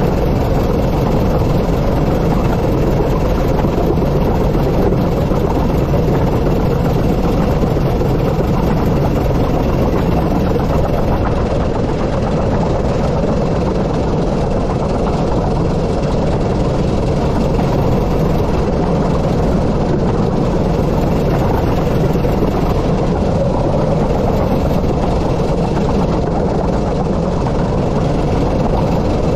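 Steady running noise of the 15-inch gauge steam locomotive River Mite and its train under way on the line, holding an even level throughout.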